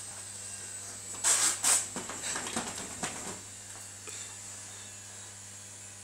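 A German Shorthaired Pointer tearing at a towel: two loud rushes of noise about a second in, then softer rustling and scuffling that dies down by about halfway.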